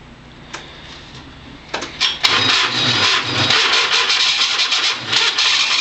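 Cub Cadet 1782's diesel engine being cold-started after glow-plug preheat, having sat unused since October: after a quiet couple of seconds the starter cranks and the engine catches and keeps running, loud, with uneven low pulses as it settles.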